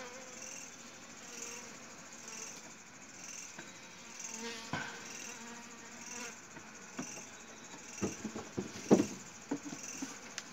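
Faint, steady buzzing and chirring of insects with a soft pulsing. From about 7 to 9.5 seconds a cluster of soft crackles and rustles comes through, the loudest around 9 seconds, as a hand works in the honeycomb behind the plastic sheeting.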